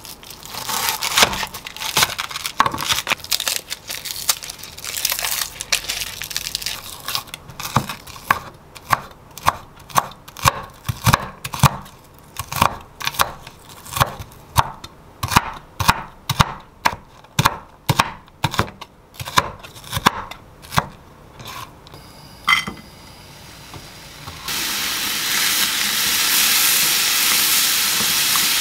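Bacon slices unwrapped from their paper, crinkling. Then a chef's knife chopping bacon on a wooden cutting board in steady strokes, about two a second. Near the end, the chopped bacon sizzling as it starts to fry in a small pan.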